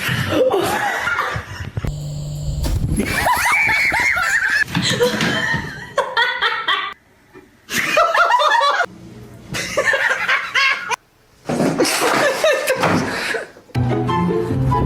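People laughing and giggling, broken several times by abrupt cuts.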